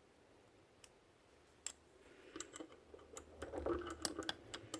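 Small parts of a Goatguns SVD miniature model gun clicking and tapping as they are handled and pushed together. Scattered clicks, a few at first, then many in quick succession through the second half.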